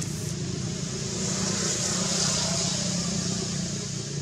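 Motor vehicle engine running steadily in the background, with a hiss that swells about halfway through and then fades.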